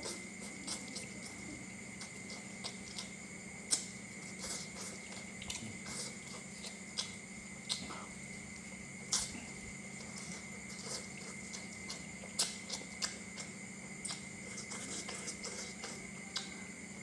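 Close-miked mouth sounds of a person eating spicy instant noodles: irregular wet slurps, smacks and chewing, a few every second, with some sharper smacks standing out.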